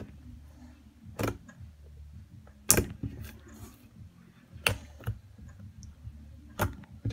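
Sticky slime being poked and pressed by hand on a tabletop: about six sharp clicks and taps, the loudest about three seconds in, over a low steady hum.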